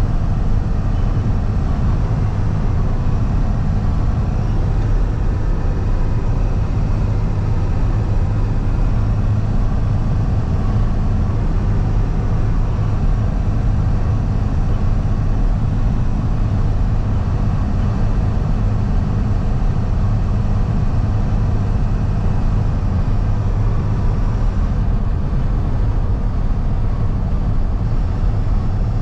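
Steady low drone of a box truck's engine and road noise heard inside the cab while driving, even and unchanging throughout.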